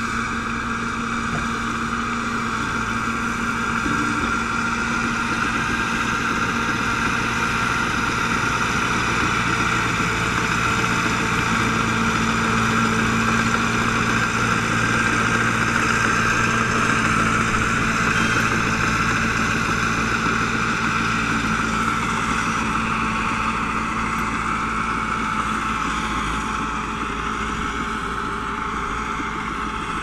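Diesel engine of a SHANTUI crawler bulldozer running steadily under load as it pushes soil, growing a little louder toward the middle and easing off near the end.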